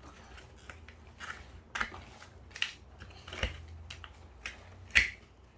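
Toy packaging being handled and pulled at while doll dresses are freed from it: irregular crinkles and clicks, with the sharpest snap near the end.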